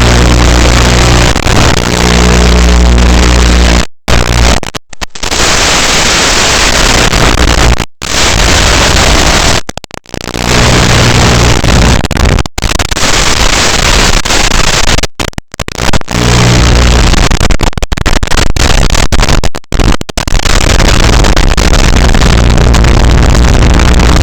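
FPV drone motors and propellers buzzing loudly and distorted, with the sound cutting out abruptly several times.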